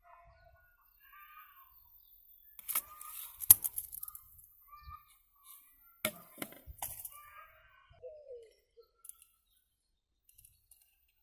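Birds chirping on and off in short calls, with a falling call near the end. Sharp clicks and knocks come about three seconds in and again around six to seven seconds, from a tape measure and a plastic pipe being handled.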